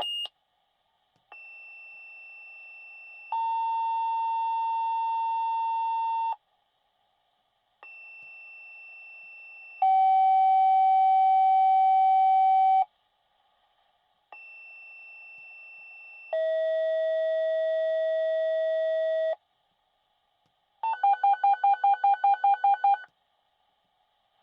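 Fire-department dispatch paging tones: three two-tone sequences, each a high steady tone for about two seconds followed by a lower, louder tone held about three seconds, setting off the crews' pagers for a new call. Near the end comes a quick run of about ten short beeps.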